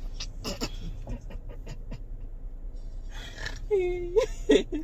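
A girl's wordless vocal sounds: breaths and small mouth clicks, then about three and a half seconds in a short, held, pitched vocal sound that bends up at its end, followed by a brief second one.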